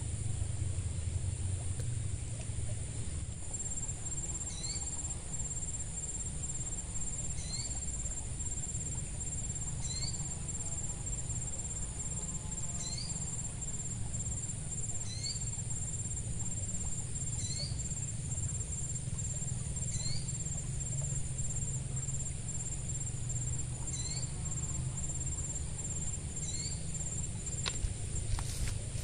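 Insects trilling steadily in a high thin drone, with a short rising chirp repeated about every two and a half seconds, over a low steady rumble. A few sharp clicks come near the end.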